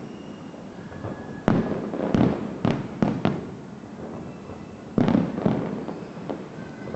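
Aerial fireworks bursting in a series of loud booms with rumbling echoes: four in quick succession from about a second and a half in, then two more about five seconds in.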